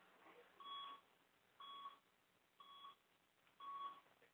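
Medical equipment beeping: four short, identical electronic beeps, evenly spaced about one a second.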